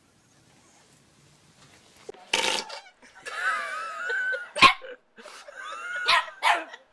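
A dog barking in sharp, loud barks starting about two seconds in, with a drawn-out wavering whine between barks and more barks near the end.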